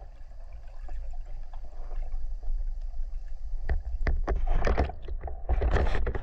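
Underwater sound picked up by a camera in its housing as a freediver descends: a steady, muffled low rumble of water, then a cluster of clicks and crackles from about three and a half seconds on, the loudest part.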